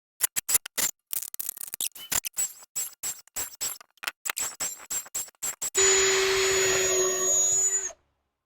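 Power drill boring out an old rear-suspension bushing: many short stop-start bursts for about five seconds, then one steady run of about two seconds that stops abruptly.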